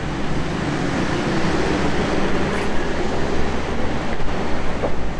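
Busy road traffic: cars and engines running past in a steady rumble with a low hum.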